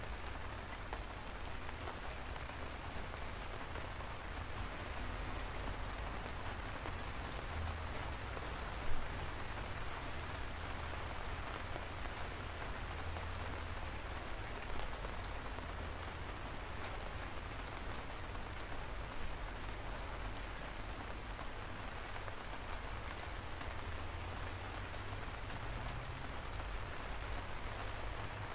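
Steady rain falling, with a low rumble underneath and single drops tapping sharply now and then; the loudest tap comes about nine seconds in.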